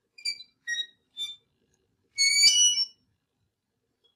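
Short high-pitched whistle-like notes: three single notes about half a second apart, then a brief flurry of overlapping higher notes about two seconds in.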